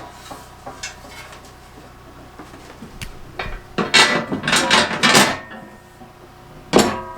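Metal snow plow parts clanking and scraping against each other as they are handled during assembly, with a quick run of knocks about four to five seconds in and one more loud clank near the end.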